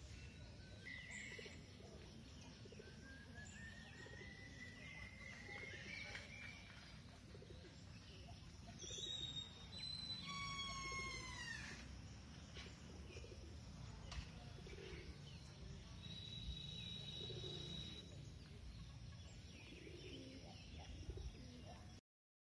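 Wild birds calling and singing over a steady low outdoor background hum. There is a rising whistle a few seconds in, a quick falling series of notes about halfway, and a held high note later on. The sound cuts off just before the end.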